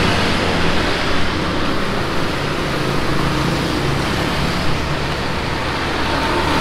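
Steady road-traffic noise: a low engine hum under a continuous rush of road and air noise.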